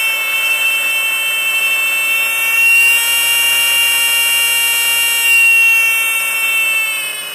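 Small electronic buzzer sounding a steady high-pitched tone, powered from an adjustable voltage regulator. Near the end it fades as the supply voltage is turned down.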